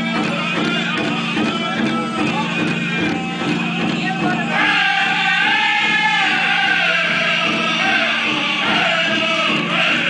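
Powwow drum group singing a Grand Entry song around a big drum, a chorus of men's voices. The high-pitched singing grows stronger about halfway through.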